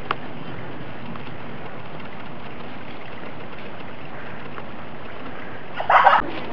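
Steady, even hiss of outdoor background noise, with a faint click right at the start and a short, loud burst of noise about six seconds in.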